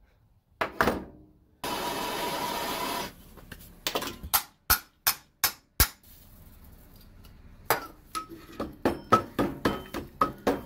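Hammer blows on the metal housing of a seized starter motor, knocking it apart. The blows come as a few separate knocks, then an even run of about five, then a quicker series with a metallic ring near the end. About a second and a half in, a steady hiss lasts about a second and a half.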